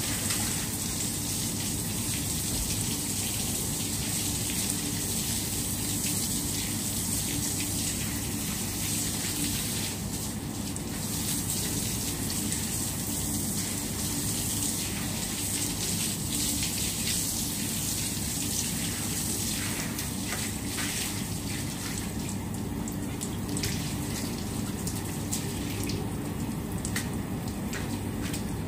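Water gushing steadily from a garden hose and splashing onto a tiled floor. A few short knocks and clicks come near the end.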